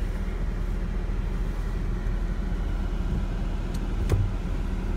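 Chevrolet Camaro SS's V8 idling, a steady low rumble heard inside the cabin, with one short click about four seconds in.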